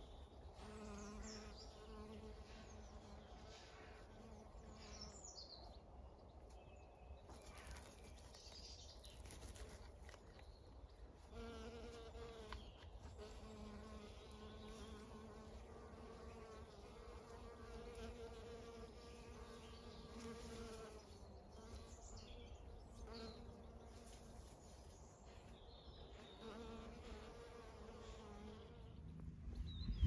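Faint buzzing of a honeybee's wings. The hum comes and goes in stretches of a few seconds.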